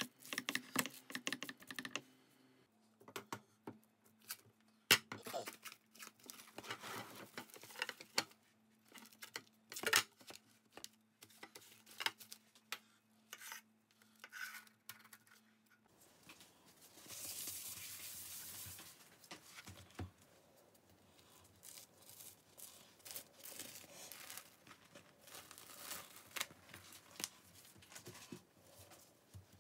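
A spatula scraping and stirring a thick filling in a nonstick pan for the first couple of seconds, then scattered taps, clicks and rustles as a knife cuts through a stack of spring roll sheets and the thin sheets are peeled apart and laid down. A faint steady hum runs until about halfway, and a longer papery tearing rustle comes just after it.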